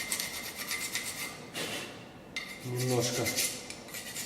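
Small hand file rasping in repeated strokes on a Subaru Forester brake caliper part, scraping off dirt.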